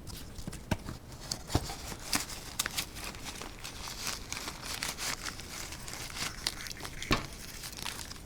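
Packing material being crinkled and torn by hand as a parcel is unpacked, with a few sharp knocks, about three-quarters of a second, a second and a half and seven seconds in.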